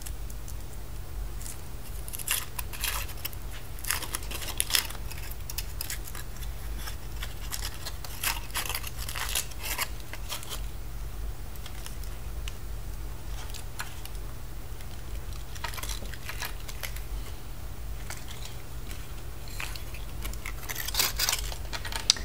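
Surprise egg being unwrapped by hand: its wrapper tears and crinkles in short scattered bursts, with a few clicks, over a steady low hum.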